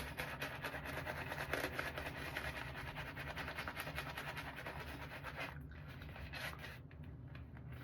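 Synthetic shaving brush whisking shave-soap lather on the face in quick, scrubbing strokes. The strokes ease off about five and a half seconds in, with a few short flurries after.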